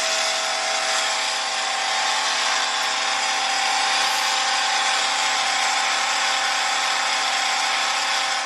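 Nashville Predators arena goal horn sounding one long, steady blast over a dense wash of noise.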